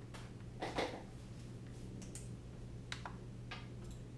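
Several sharp plastic clicks, irregularly spaced, from the buttons and scroll wheel of an FrSky X9 Lite radio transmitter as a name is entered letter by letter, over a steady low hum.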